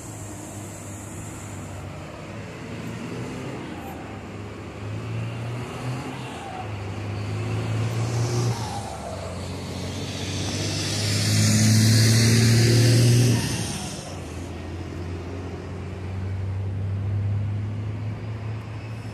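Diesel engines of intercity coaches running as they pull out of a bus station, a steady low hum throughout. One passes close, loudest with a hiss for about three seconds from ten seconds in, then fades.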